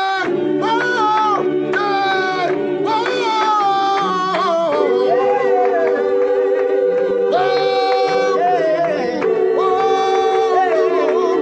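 A gospel choir singing a cappella in several-part harmony, the notes changing often at first and then settling into long held chords from about halfway through.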